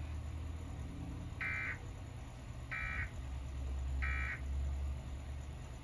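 Emergency Alert System end-of-message signal: three short bursts of high-pitched digital data tones about 1.3 s apart, marking the end of the warning broadcast. A steady low hum runs underneath.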